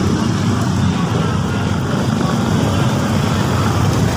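Steady low rumble of road traffic, with motorcycle and car engines running close by in a crowded street.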